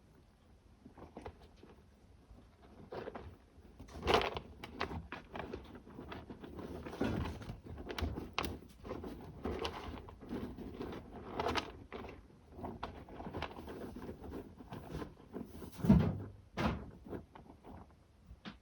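Kittens scratching and digging in cat litter: a run of irregular short scrapes and rustles, with a louder knock about four seconds in and another near the end.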